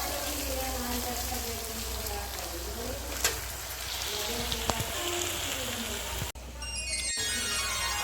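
Steady rain falling, with faint music underneath and a brief dropout about six seconds in.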